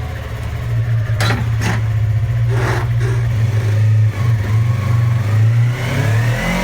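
Yamaha R3's parallel-twin engine running steadily at low revs, with a few light knocks early on and a rising note near the end as it begins to rev.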